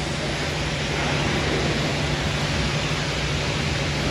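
Self-serve car wash high-pressure wand spraying water against the lower side of a car: a steady hiss of spray with a low hum under it.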